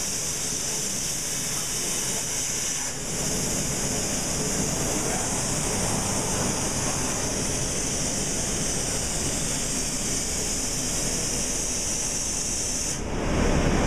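CNC plasma cutting table's torch cutting a metal plate: a steady, loud hiss of the arc and its compressed air, with a brief dip about three seconds in. The high hiss falls away near the end.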